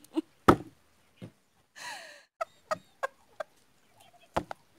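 A woman's breathless laughter: short gasping and wheezing bursts at uneven spacing, with a brief hiss about two seconds in.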